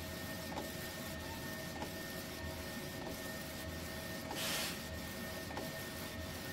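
UV printer running while it prints a small-diameter bottle turning on its roller attachment: a steady mechanical hum with soft ticks about every half second. A louder swish about two-thirds of the way through comes as the print carriage with its UV lamp passes.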